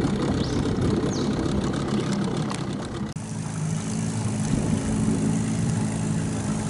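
Small outboard motor on a dinghy running steadily at low throttle. About three seconds in the sound changes abruptly at an edit, after which the engine hum is more even.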